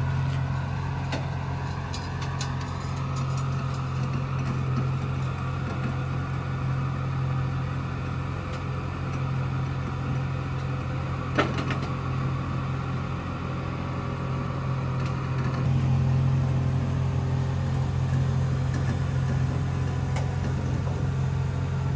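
Car engine and road noise as a steady low drone. A tone rises over the first few seconds as the car picks up speed. There is a single sharp click about eleven seconds in, and the drone changes and grows a little louder around sixteen seconds.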